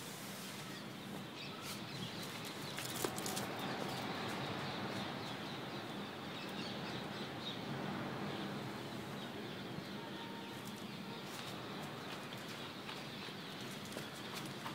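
Steady outdoor background noise with faint bird calls and a single light click about three seconds in.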